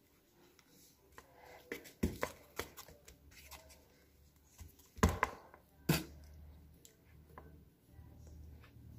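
A banana peel being torn and pulled off with the teeth, with small mouth sounds and a few sharp knocks of the banana against the plate. The loudest knocks come about two seconds in and twice around five to six seconds in.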